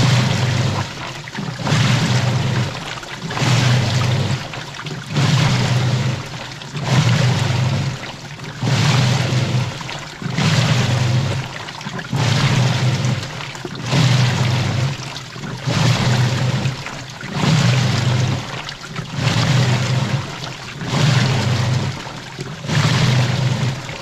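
Front-loading washing machine in its wash cycle: the drum turns in regular strokes about every 1.7 seconds, each one a swish and slosh of water over a low motor hum, with short pauses between.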